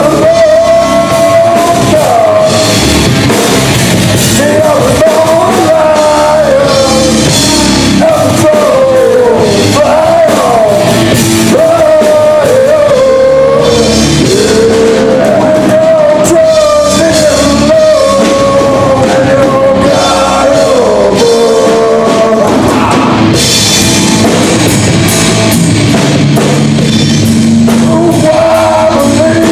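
Live rock band playing loud: a man singing over electric guitars, bass guitar and a drum kit with crashing cymbals.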